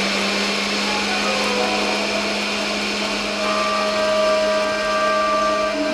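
Oster countertop blender motor running steadily at one speed while oil is drizzled in through the lid, emulsifying egg, mustard and lemon into mayonnaise.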